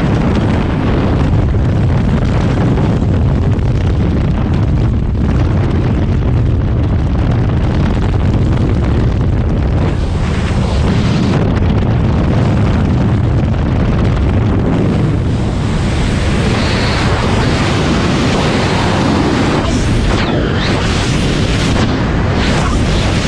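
Freefall wind rushing over a helmet-mounted camera's microphone: a loud, steady roar of air, growing hissier in the last several seconds.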